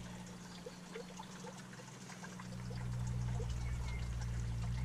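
Small wet clicks and smacks of grilled chicken being pulled apart by hand and chewed, over a low steady hum that grows louder about two and a half seconds in.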